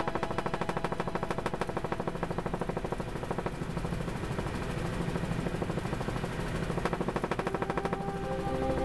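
Helicopter in flight heard from inside the cabin: a rapid, steady chop of the rotor over the engine noise. Music comes in faintly underneath near the end.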